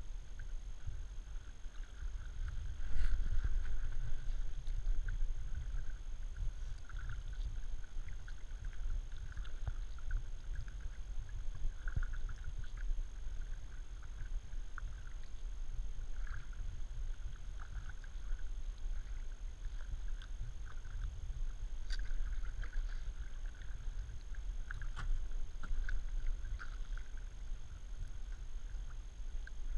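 Kayak paddle strokes on calm creek water: light splashing and dripping with occasional small knocks, over a steady low rumble.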